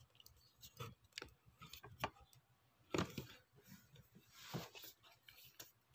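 Faint, scattered clicks and knocks of a camera being handled and raised, with a brief rustle about four and a half seconds in.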